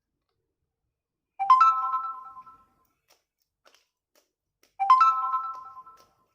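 An electronic bell-like chime sounds twice, about three and a half seconds apart, each a cluster of tones with a sharp start that rings out for about a second.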